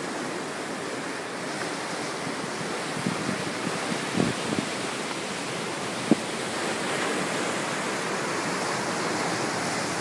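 Ocean surf breaking on a rocky lava shoreline: a steady rushing wash of waves. A few soft knocks come around four seconds in, and a sharp click about six seconds in.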